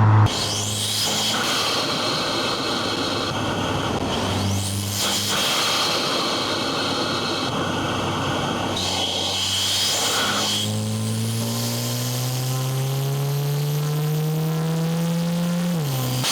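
VW MK8 GTI's turbocharged 2.0-litre four-cylinder through a Milltek downpipe and cat-back exhaust while driving, over road and tyre noise. The note changes pitch a few times early on, then climbs steadily under acceleration for several seconds near the end before dropping sharply at an upshift.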